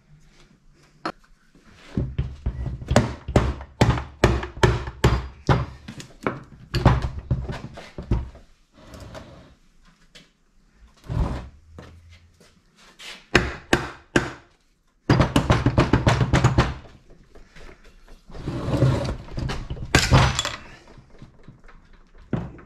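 Runs of sharp knocks and clunks, several a second, from hand work on a stripped-down Yamaha Banshee two-stroke engine's gears and cases. There are quieter gaps between the runs.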